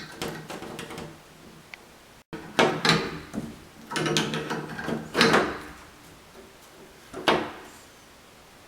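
Shower valve sleeve being fitted and screwed down over the faucet stem: a series of short knocks and scraping clatters of the parts being handled, the loudest about five seconds in.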